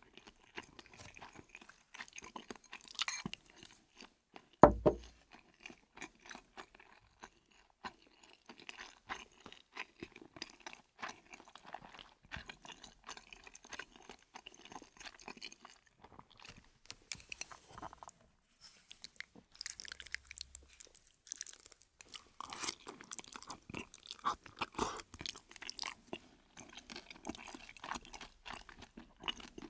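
Close-up chewing and crunching of fried chicken, a dense run of small crisp clicks that comes and goes. A single loud thump sounds about four and a half seconds in.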